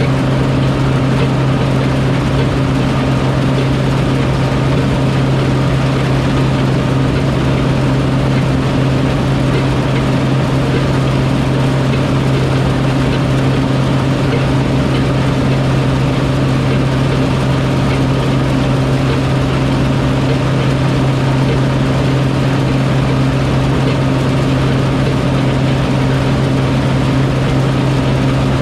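Large farm machine engine running steadily at constant speed: a loud, unchanging low drone with a strong steady hum.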